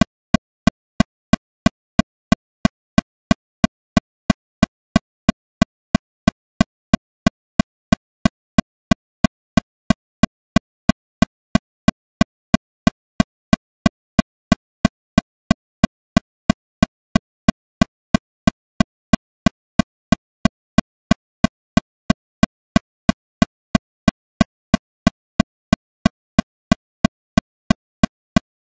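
Metronome clicking steadily at 182 beats per minute, about three short, sharp clicks a second, all at the same level.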